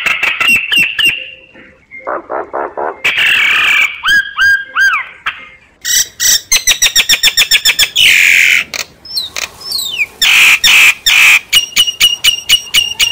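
A myna calling in a loud, varied string of short whistles, clicks and harsh squawks, with quick runs of repeated notes. This is a decoy myna's call, played to draw wild mynas in.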